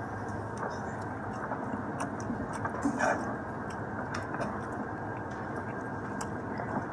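A person chewing a bite of soft taco, with small wet mouth clicks over steady background noise.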